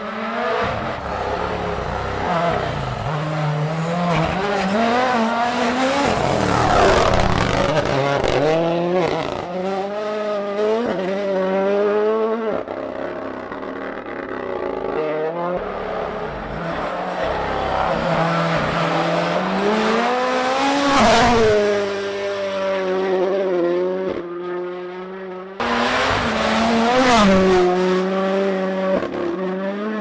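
Toyota Yaris hybrid WRC rally cars, with turbocharged 1.6-litre four-cylinder engines, accelerating hard past in several separate passes. The engine note climbs in pitch and drops back on each gear change, loudest as each car goes by.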